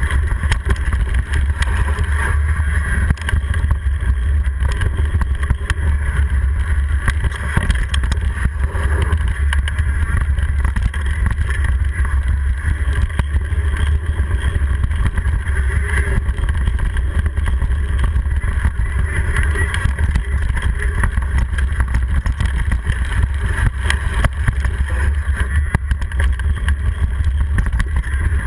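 Mountain bike rolling over a dirt singletrack, heard through a handlebar-mounted camera: a steady low rumble of trail vibration and wind on the microphone, with many small knocks and rattles from the bike.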